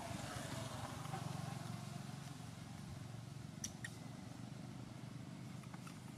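Steady low hum of distant motor traffic, a little louder in the first two seconds, with two light clicks a little past the middle.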